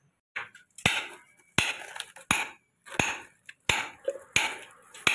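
About eight sharp knocks with a light clinking ring, spaced a little under a second apart.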